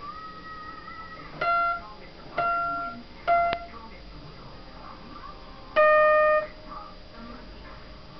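Guitar plucked as four separate single notes with sharp attacks, the last one held a little longer than the others.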